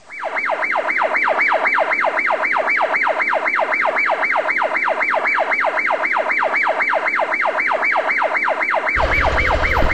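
Electronic siren wailing in rapid falling sweeps, about four a second, each dropping from high to mid pitch. About nine seconds in, a low rumble joins it.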